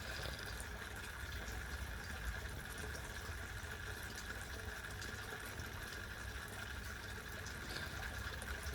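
Water trickling steadily down a small pump-fed garden waterfall and stream into a pond.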